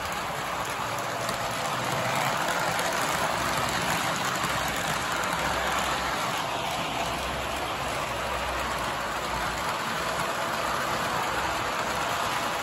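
Model trains running on three-rail O-gauge track: a steady rolling rush of metal wheels and electric motors.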